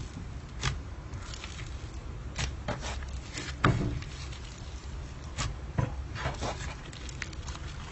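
Slime being squished and handled, making scattered wet clicks and pops, one louder pop about halfway through.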